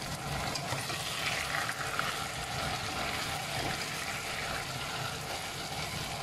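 Chicken wings simmering in adobo sauce in an open pot: a steady sizzle, with a slotted spatula stirring the pieces.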